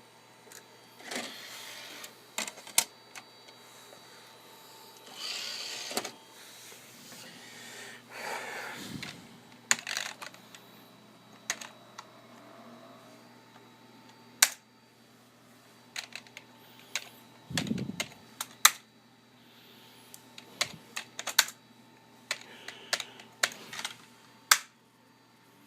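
Keys being typed on a computer keyboard: irregular clicks, singly and in short runs, with a few brief rustles in between.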